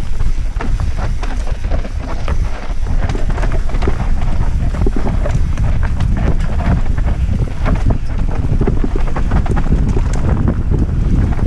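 Wind buffeting the microphone of a mountain biker descending a dirt trail, with a steady low rumble of tyres over dirt and many small rattles and knocks from the bike over roots and bumps.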